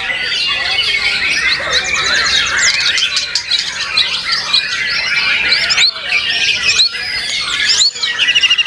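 Several caged white-rumped shamas singing at once: a dense, unbroken tangle of whistles, chatter and quick rising and falling notes, with a fast, even trill starting near the end.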